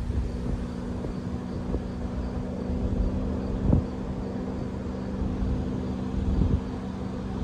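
Wind rumbling on the microphone, with a steady low engine-like hum underneath and a couple of louder gusts or bumps, one near the middle and one near the end.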